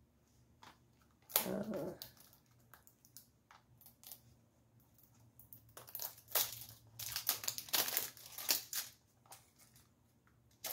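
Packaging of a boxed mascara being handled and opened by hand: crinkling and tearing of the box and its plastic wrapping, with one louder burst about a second in and a busy run of crackling in the second half.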